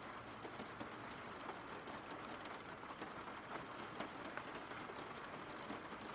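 Steady rain falling: an even, soft hiss scattered with many small drop ticks.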